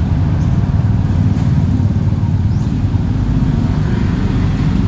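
Steady low rumble of motor vehicles running in the background, like road traffic passing a roadside shop.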